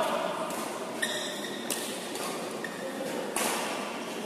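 Badminton racket strikes on a shuttlecock during a rally, three sharp cracks: about a second in, again shortly after, and a louder one near the end that rings briefly in the hall. A short high squeak comes just after the first strike.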